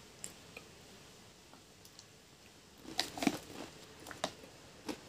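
Pringles potato chips being chewed, with a few crisp crunches about three seconds in. A couple of short knocks near the end come from the cardboard Pringles can being handled.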